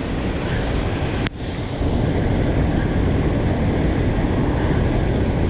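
Steady roar of water pouring out of the dam's release, mixed with wind on the microphone. A sharp click about a second in, after which the roar is a little louder.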